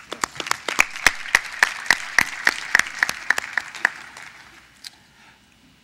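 Audience applauding, with sharp individual claps, dying away about four seconds in.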